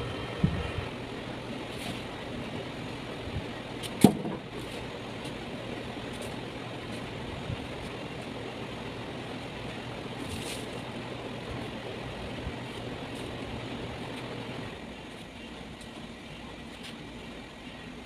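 Steady low appliance hum that stops near the end, under light kitchen handling: a few soft clicks of a knife and metal bowl, and one sharp knock about four seconds in.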